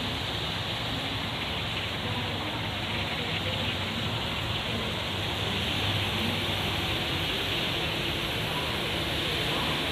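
Passenger train moving slowly along the station tracks: a steady rushing noise with a faint low hum underneath.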